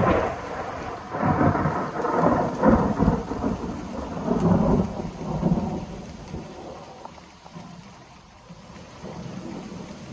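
Thunder: a sudden crack, then a long rolling rumble in several swells that dies away over about six seconds, with steady rain falling throughout.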